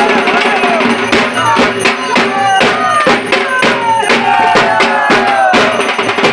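Dhak drums beaten in a fast, dense rhythm, several strokes a second, over a pitched melody line that slides downward again and again.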